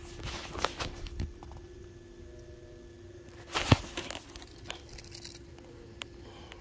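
Footsteps crunching and scuffing on loose flat rock and dry brush, a cluster of crunches in the first second and a single loud knock about three and a half seconds in. A faint steady hum runs underneath.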